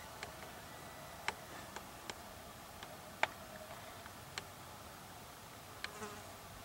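Faint steady insect buzzing, with about eight small sharp clicks scattered through it.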